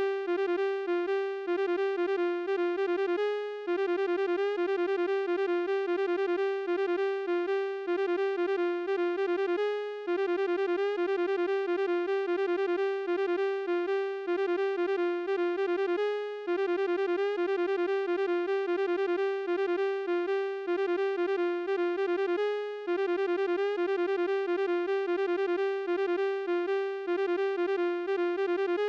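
Layered synthesized keyboard-like tones from a "1000 flutes" sound effect: one held pitch with many overtones, struck in rapid repeated notes. The phrase loops, breaking off briefly about every six and a half seconds.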